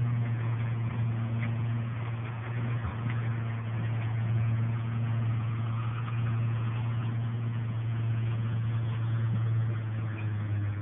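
A steady low mechanical hum, even in pitch throughout, over faint hiss.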